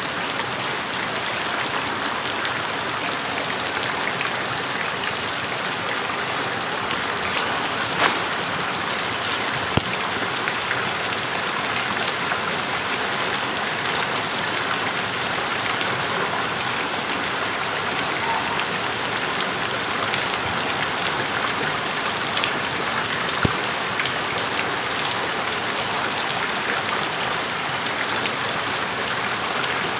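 Steady rain falling and pattering on surfaces, an even hiss with a few sharper single taps standing out.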